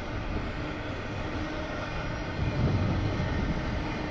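Freight train rolling past with a steady rumble of wheels on rail, growing a little louder about two-thirds of the way through.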